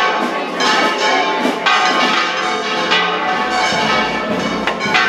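Church bells pealing, struck again every one to two seconds, each stroke ringing on into the next.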